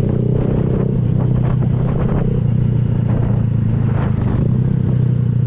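Honda Grom's 125 cc single-cylinder engine running through an aftermarket Kemimoto slip-on exhaust, holding a steady drone while riding at an even speed with no revving.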